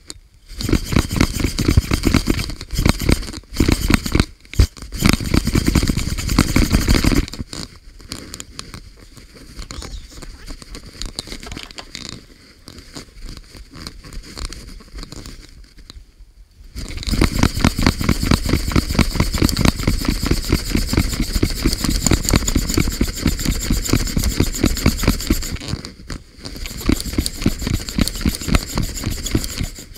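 Stanley hacksaw cutting through an aluminium round bar with fast back-and-forth strokes. The sawing comes in two long loud spells, with a quieter stretch of about ten seconds in the middle.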